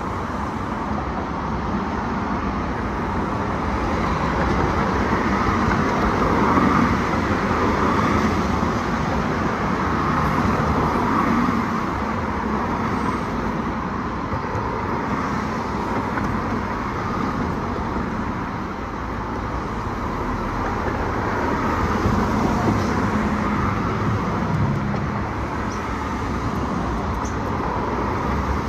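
Road traffic: the steady noise of cars' engines and tyres passing along the street, growing louder twice as vehicles come by.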